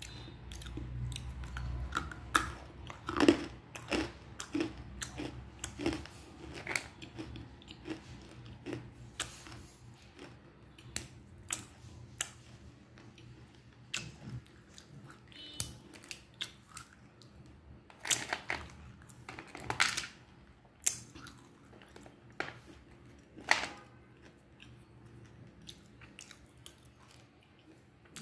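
Chunks of dry 'Black Hole' black clay being bitten and chewed with the mouth close to the microphone: sharp crunches, thick and fast for the first several seconds, then sparser, with a few louder crunches about two-thirds of the way in. The clay is very crunchy, the sign that it is dry and has not taken on moisture.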